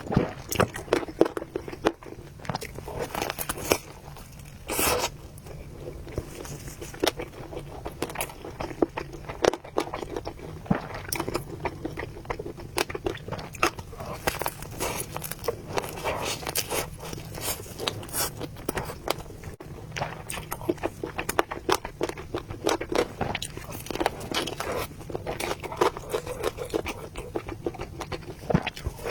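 Close-miked eating sounds from someone eating noodles and meatballs: chewing and biting, with many quick irregular clicks and scrapes. There is a louder patch about five seconds in.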